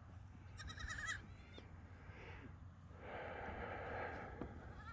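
A goat bleats once, a short quavering call about half a second in. A couple of seconds later comes a longer rustling hiss.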